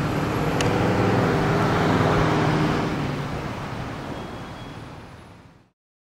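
Grumman E-2 Hawkeye's two Allison T56 turboprop engines and propellers droning as it flies past. The drone peaks about two seconds in, then fades away and dies out near the end.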